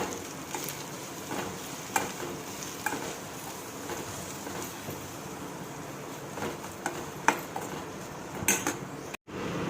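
Onion, tomato and chopped leaves sautéing in oil in a pan, a steady sizzle while they are stirred, the utensil clicking and scraping against the pan every second or so. The sound cuts out briefly near the end.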